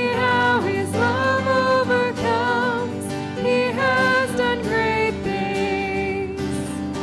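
A live worship band playing a praise song: voices singing a held, flowing melody over acoustic guitar and keyboard.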